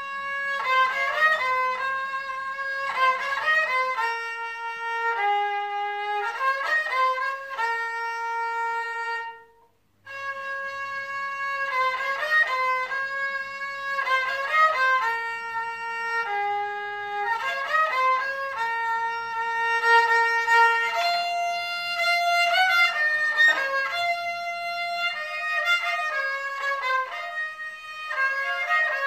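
Kamancha, the Azerbaijani bowed spike fiddle, playing an Azerbaijani song melody in held, bowed notes. About a third of the way in it breaks off for about a second, then takes up the same phrase again and later climbs higher.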